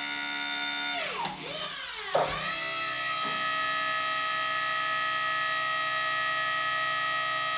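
Hydraulic power pack pump running with a steady whine while a rebuilt hydraulic cylinder is cycled in and out for a function test. About a second in, the whine sags in pitch. There is a sharp clunk about two seconds in, and then the whine settles back to steady.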